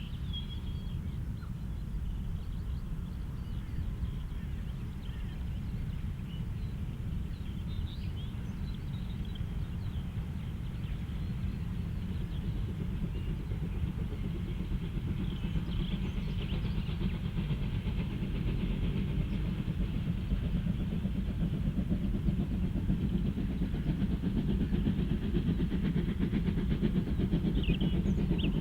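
Steam train heard from the lineside as a low rumble that grows steadily louder as it approaches, with birds chirping over it.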